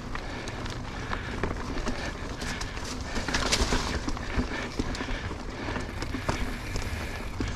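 Mountain bike being ridden uphill on a dirt trail: steady tyre and ground noise with many small clicks and rattles from the bike, and a brief louder hiss about three and a half seconds in.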